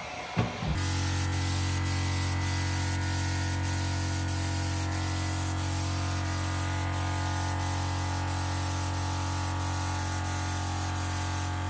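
Small gravity-feed paint spray gun hissing steadily as it sprays paint, with a steady low hum underneath. The hiss starts just under a second in and cuts off just before the end.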